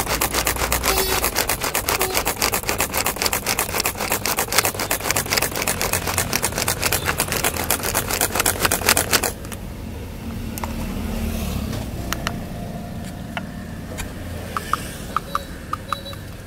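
Manual onion chopper being worked fast on a board, its blades chopping onion with a rapid, even rattle of several strokes a second that stops about nine seconds in. Afterwards only light clicks and taps.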